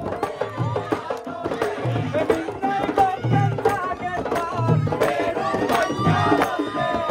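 Boduberu: several hand-beaten boduberu drums play a fast, dense rhythm under voices singing together. Heavy low drum strokes come about every second and a half.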